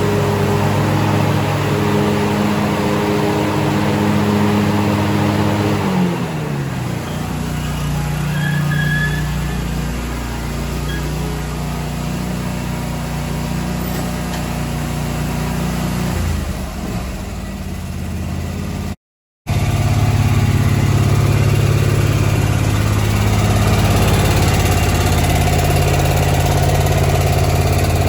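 Gravely ZT60 HD zero-turn mower's 26 hp air-cooled two-cylinder Kawasaki engine running. About six seconds in the engine speed drops and it runs lower for a while. After a brief cut-out in the sound it runs steadily at a higher speed.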